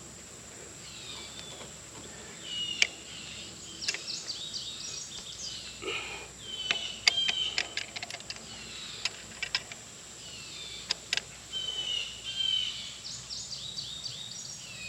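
Birds chirping in short, repeated calls, with a dozen or so sharp clicks and knocks scattered throughout.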